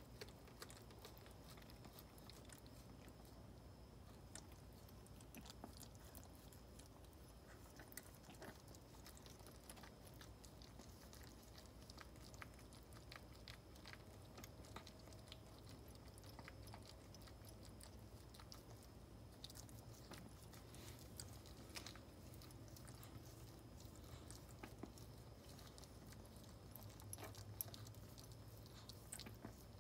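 Faint, scattered wet clicks of a Maltese mother dog licking and nibbling at her newborn puppy, over a low steady hum.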